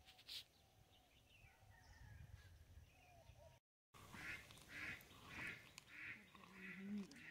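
Faint chirping, then, about four seconds in, ducks quacking in a quick regular series of about two quacks a second.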